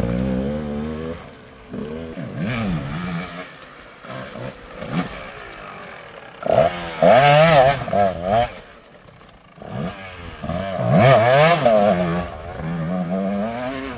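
Dirt bike engines revving up and down in bursts, with the loudest revving about seven seconds in and again around eleven seconds in, and quieter stretches between.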